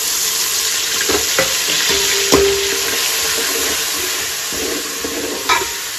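Ginger-garlic paste sizzling in hot oil with whole spices and fried onion in a steel pot, with a steady frying hiss. It is being stirred, and a few sharp knocks of metal on the pot come through, the loudest about two seconds in with a short ring.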